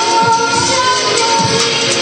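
A young girl singing into a microphone over backing music, holding long, slightly wavering notes.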